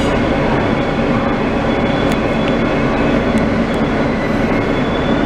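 An R160B Siemens subway car running on the rails, heard from inside the car: a steady, loud rumble of wheels and running gear, with a few sharp clicks about two and three and a half seconds in.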